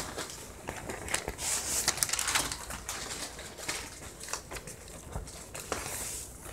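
Faint scattered clicks and rustling in a small room, with a louder rustle about a second and a half in.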